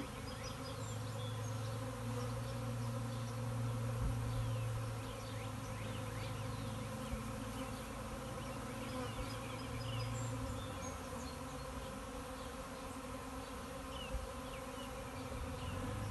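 A swarm of honeybees buzzing steadily, the massed hum of many wings.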